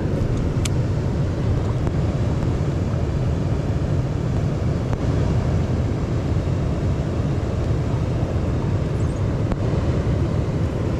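Steady low rumbling rush of river water pouring below a dam, with one short sharp click about half a second in.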